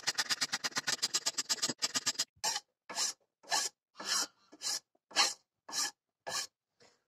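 A coarse wood rasp filing a wooden knife handle by hand. It makes quick short strokes, about eight a second, for the first two seconds, then slower single strokes about two a second.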